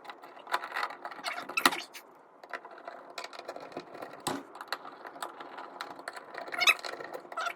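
Irregular clicks, taps and knocks of hands working the parts of a weatherproof outlet box and receptacle.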